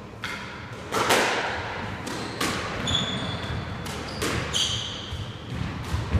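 Squash rally: the ball smacking off rackets and the court walls every second or so, the loudest hit about a second in, with short squeaks from shoes on the wooden court floor.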